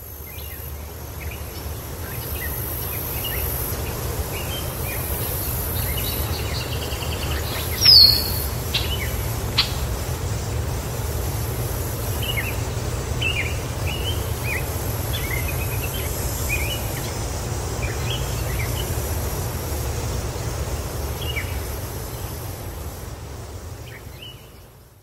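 Outdoor ambience of small birds chirping, over a steady low rumble and a high, steady insect-like hiss. One loud, sharp, falling chirp comes about eight seconds in. The whole fades in at the start and fades out at the end.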